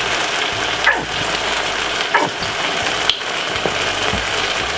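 Minced-beef bolognese sauce sizzling in a frying pan on the stove: a steady hiss with a few sharp pops.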